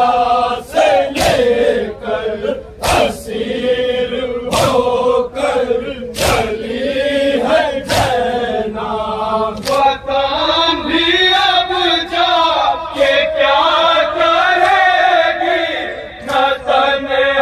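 A group of voices chanting a Muharram noha (mourning lament) together, with sharp beats every second or two, mostly in the first half.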